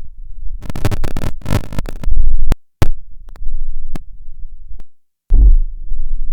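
Synthesized noises from an Arturia Modular V3 software modular synth patch. A low rumble gives way to a cluster of harsh crackling bursts and a loud low boom, and the sound cuts out abruptly twice. Near the end a plain synth tone steps between two pitches.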